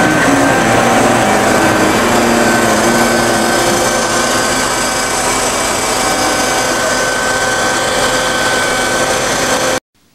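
Passenger train's engine and machinery running steadily, a dense mechanical noise with a high whine over it, heard from the train's doorway. It cuts off suddenly near the end.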